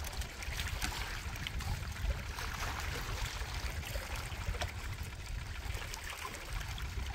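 Small lake waves lapping and splashing against shoreline rocks, an uneven watery wash with small crackles, over a low rumble.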